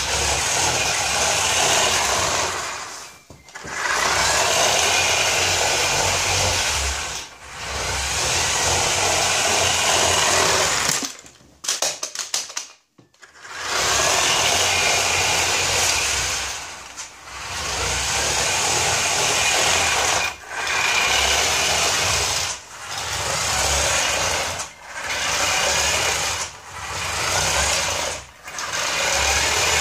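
Small electric drive motor and gearbox of a motorised model tractor whirring in runs of a few seconds, stopping briefly between them. About eleven seconds in it cuts out with a few clicks before starting again, and toward the end the runs get shorter.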